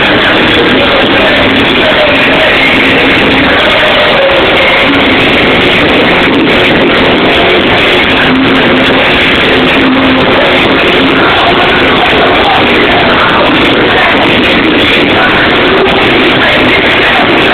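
Loud nightclub music playing continuously, so loud that the phone's recording is overloaded and distorted.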